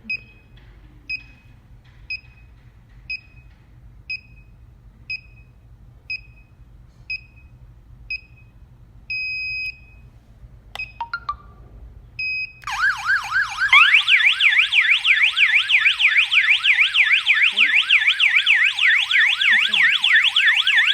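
Wireless alarm system beeping: short high beeps about once a second, then a longer beep and a few clicks. About thirteen seconds in, the siren starts sounding, a loud, fast up-and-down electronic warble, as the alarm is triggered during pairing of the control panel with the outdoor strobe siren.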